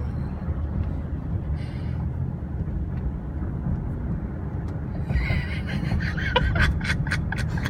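Steady low road and engine rumble inside a moving car's cabin. A short spell of irregular clicks and rustling starts about five seconds in.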